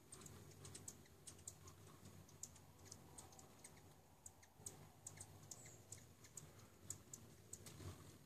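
Hummingbirds chipping around a feeder: many short, sharp, high chips, irregular and several a second, faint over a low steady hum.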